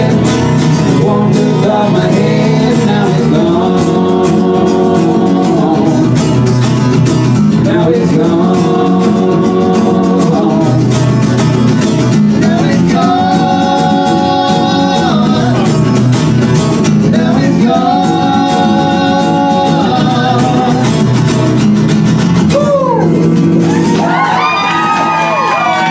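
Live band song: guitar accompaniment under long, held sung notes. Near the end, high sliding vocal whoops ring out over the music.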